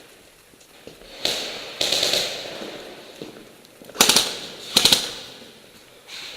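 Airsoft guns firing four short bursts: two softer ones a little after a second in, then two louder rapid rattles of shots near four and five seconds in.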